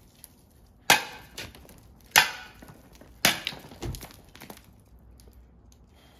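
A metal shovel blade chopping at a large icicle: three sharp cracking hits a little over a second apart, followed by a few lighter knocks as the ice breaks away and pieces fall.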